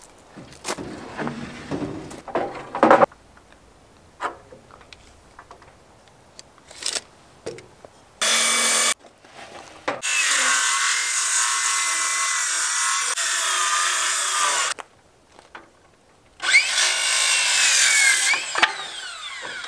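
Makita 18V cordless circular saw ripping 1x3 boards lengthwise: a short burst, then two long cuts, the motor whining high over the blade's hiss and winding down at the end of the last cut. Before the sawing come scattered knocks and rustles of lumber being handled.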